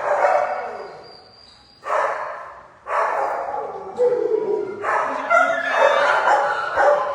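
Dogs barking in shelter kennels, each bark echoing off the hard walls. A few separate barks come in the first half, then the barking grows almost continuous from about halfway.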